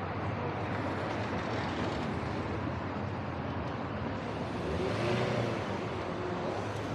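Street traffic noise: cars driving along a city street, a steady rumble with one vehicle passing a little louder about five seconds in.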